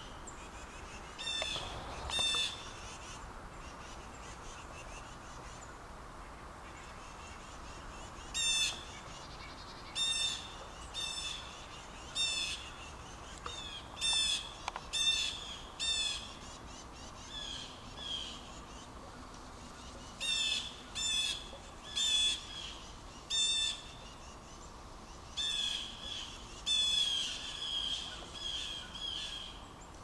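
Blue jays giving harsh, repeated jeer calls in clusters, mobbing a predator the uploader takes for an owl or hawk hidden in the woods. After a couple of calls there is a pause of several seconds, then the calls come thick and fast, two or three a second at times.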